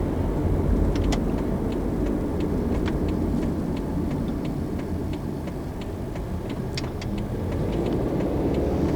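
Steady low road and engine rumble of a car being driven, heard from inside. From about three seconds in, a regular ticking runs at about three ticks a second, typical of the turn-signal indicator.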